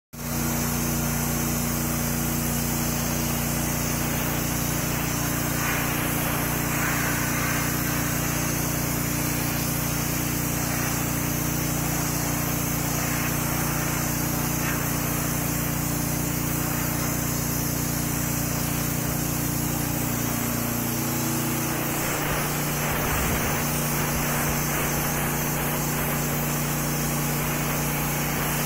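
Soda blaster spraying sodium bicarbonate through its nozzle onto a rock and mortar fireplace: a loud, steady hiss of air and abrasive without a break. A steady low machine hum runs underneath it and changes slightly about twenty seconds in.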